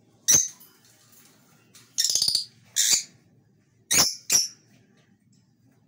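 Rosy-faced lovebirds calling: five short, sharp, high-pitched calls in about four seconds, one of them, about two seconds in, a rapid rattling burst.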